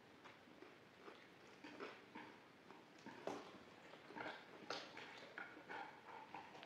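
Faint, irregular clicks and taps of chopsticks and a fork against plates during a quiet meal.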